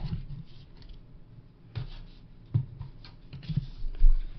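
Cardboard phone box and its packaging being handled and opened, with scattered rubbing and rustling, a few soft knocks, and a low thump near the end.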